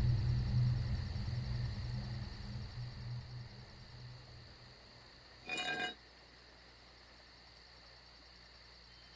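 Low, dark film-score drone fading out over the first four seconds, then near silence broken about five and a half seconds in by one brief, high, chime-like ring.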